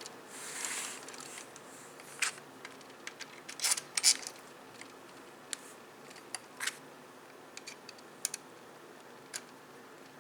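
A short breath in, then about a dozen light, sharp clicks and taps scattered irregularly over several seconds, with a small cluster around four seconds in.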